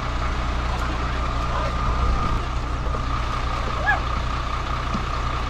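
Diesel engine of a parked tour coach idling steadily, with a steady high-pitched tone running over it the whole time. A faint voice is heard briefly near the end.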